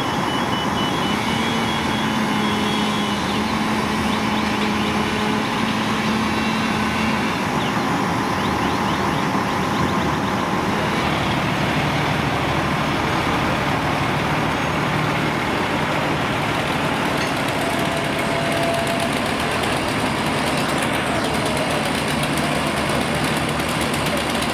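A fire truck's engine running steadily at the scene. A few short high beeps repeat in the first three seconds.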